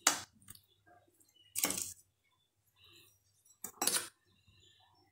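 Three short clinks and scrapes of metal kitchenware, about two seconds apart: a spoon against a steel bowl.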